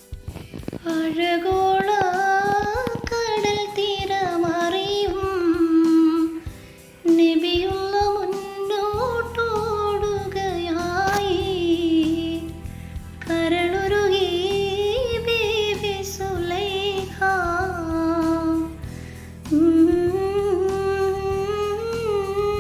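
A woman's voice singing a slow, ornamented melody in long phrases, each ending on a held note, in a Malayalam Mappila song. A low steady accompaniment comes in about nine seconds in.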